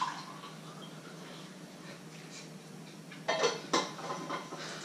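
Light kitchen handling sounds: utensils and small items clinking and knocking on a wooden counter, with two sharper knocks a little past the middle, over a steady low hum.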